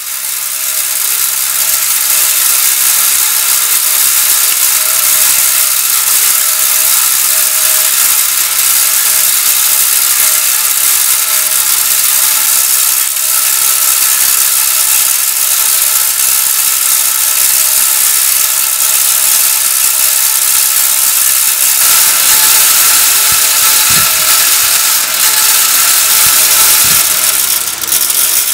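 Electric floor fan running: a loud, steady whirring hiss with a fast mechanical rattle in it.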